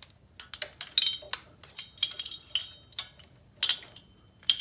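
Small metal ignition parts, the points plate and condenser assembly, clicking and clinking as they are worked loose and handled by hand. About a dozen sharp, irregular metallic clicks, some with a brief ring.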